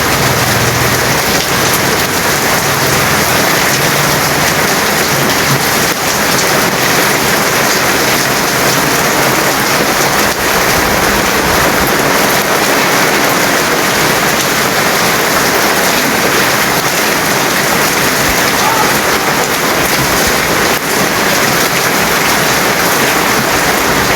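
Steady heavy rain falling and pattering on surfaces: a dense, even hiss at a constant level.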